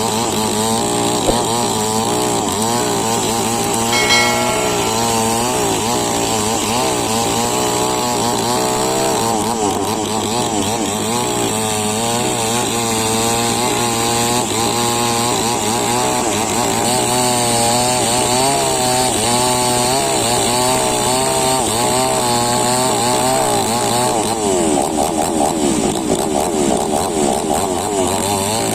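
Two-stroke chainsaw engine running under load while cutting wood, its pitch wavering up and down continuously as the chain bites. The engine note shifts near the end.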